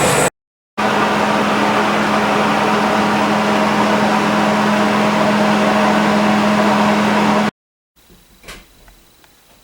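Loud, steady whirring of a motor-driven workshop machine with a steady hum underneath. It cuts off abruptly twice, and near the end gives way to a quiet room with a single light knock.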